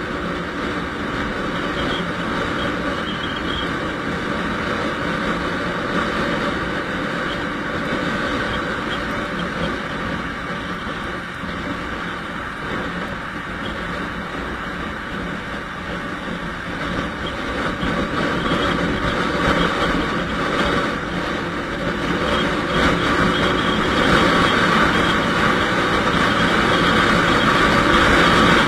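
Yamaha NMAX 155 scooter running along a highway: its single-cylinder engine with steady wind and road noise, getting louder over the last ten seconds.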